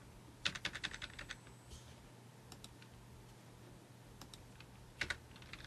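Faint computer keyboard typing: a quick run of keystrokes about half a second in, a few scattered taps, then another run near the end.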